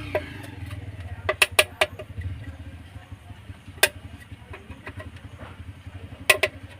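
Sharp clicks and taps at uneven intervals, the loudest about a second and a half in, near four seconds and near the end, as the casing of a car's engine control module (ECM) is prised open. A steady low motor hum runs underneath.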